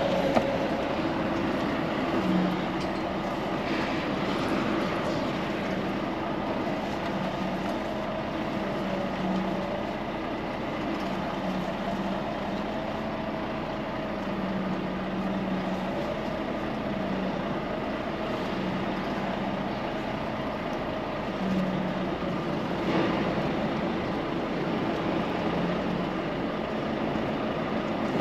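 Steady drone of a running engine with a humming tone that wavers slightly in pitch, and a few faint knocks.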